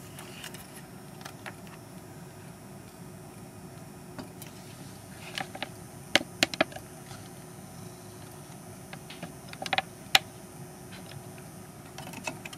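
A few sharp clicks and light taps as a circuit board is handled and turned over in a small bench vise, in two clusters about five and ten seconds in, over a faint steady hum.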